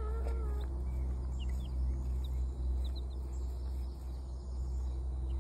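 Black Sex Link chicks peeping on and off, short high cheeps scattered through, over a steady low rumble.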